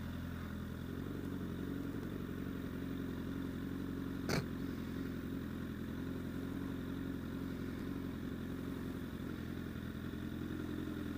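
Honda CBR1000RR's inline-four engine running steadily, with a single sharp click about four seconds in.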